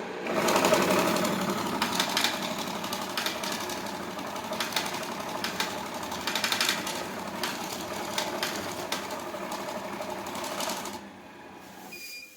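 Banknote sorting machine running, notes feeding through with a rapid, continuous clicking whir that stops about eleven seconds in, followed by a short beep.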